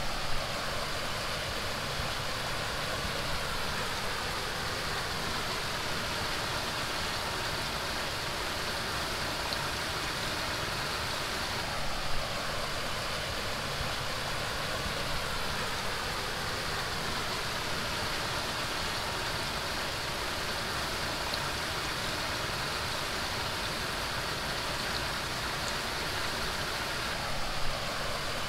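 Steady rushing background noise, with brief louder sounds about twelve seconds in and again near the end.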